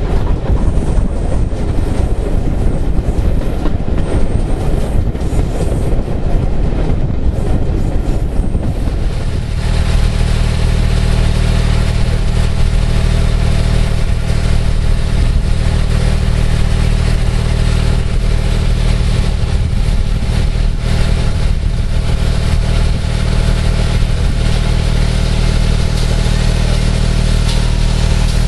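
Railway carriage rumbling along the track, its wheels running over the rails. About nine seconds in, the sound changes abruptly to a loud, steady engine drone from a running locomotive engine.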